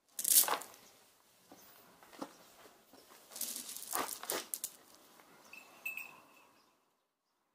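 Homemade sawdust pellets clattering as a hand scoops them up and pours them back into a tub. The rattling comes in several bursts, the first and loudest just after the start and another cluster about three to four and a half seconds in.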